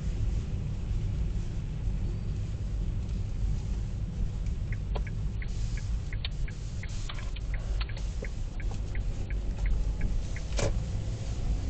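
Hyundai Solaris with a steady low engine rumble. From about five seconds in, a run of short, high squeaks, about three a second, lasts roughly five seconds, followed by one sharper click near the end. This is the unexplained squeak that comes when the car is turned left at parking speed.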